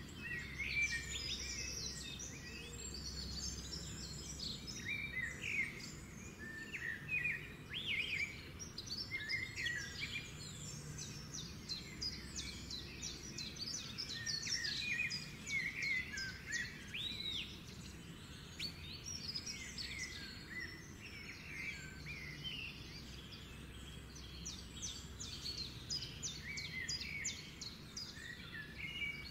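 Small birds chirping and twittering with quick, high calls in rapid runs, over a faint steady low hum.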